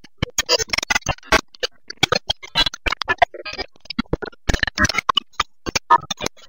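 A rapid, irregular run of sharp clicks and taps, several a second, starting and stopping abruptly.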